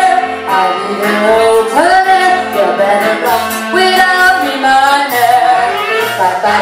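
Live pop performance: a female singer's amplified vocals over a DJ-played backing track with a steady bass beat, through PA speakers.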